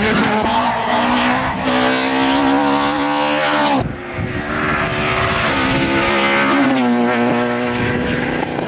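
Rally car engines at high revs on a stage: the first climbs in pitch and cuts off abruptly about four seconds in, then a second engine runs on with its note dipping once near the end.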